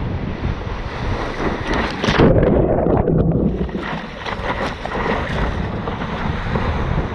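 Surf whitewater rushing and splashing around a surfboard, with wind buffeting a board-mounted camera's microphone. About two seconds in, water washes over the microphone and muffles the sound for about a second; later come short splashes as the surfer paddles.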